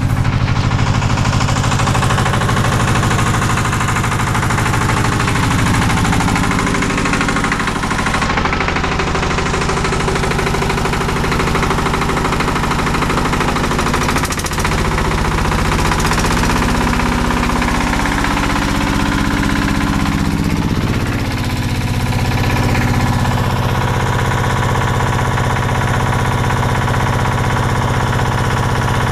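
Changfa S195M single-cylinder diesel engine running steadily with a fast, even beat of firing pulses, in its first minutes after a cold start at −17 °C. Its speed shifts slightly a couple of times.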